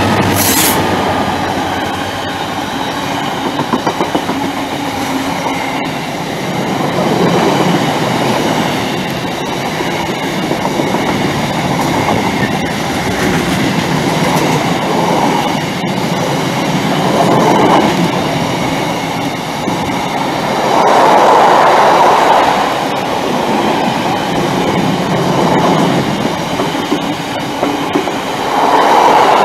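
Freight train running through at speed: a Class 66 diesel locomotive passing close, then a long rake of container wagons with their wheels clattering over the track. The loudness swells and eases every few seconds as the wagons go by.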